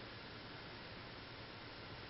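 Faint steady hiss with a low hum, unchanging throughout: room tone with no distinct sound events.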